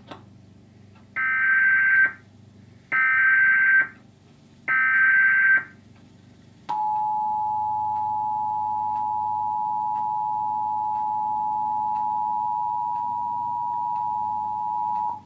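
Emergency Alert System tones: three short bursts of SAME digital header data, each about a second long, then the two-tone EAS attention signal, 853 Hz and 960 Hz sounded together as one steady dual tone held for about eight and a half seconds. The attention signal marks the start of an alert message.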